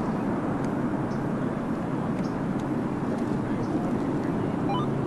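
Jet airliner engines giving a steady rushing noise, even in level throughout.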